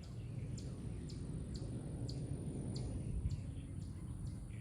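Low wind rumble on the microphone, with a short high chirp repeating about twice a second above it.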